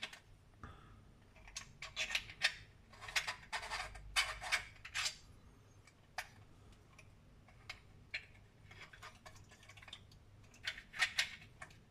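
Clicks and rattles of 3D-printed plastic parts as a key is inserted into a puzzle box's lens mechanism and the lens is turned and locks. The clicks come in several short clusters, the busiest near the end.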